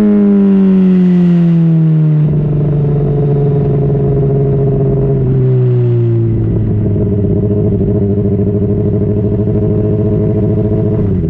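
2010 Honda CBR600RR inline-four running through a Yoshimura slip-on exhaust, its revs falling as the bike slows. It holds a steady lower note, drops again about halfway through, then settles at a low, slightly pulsing run.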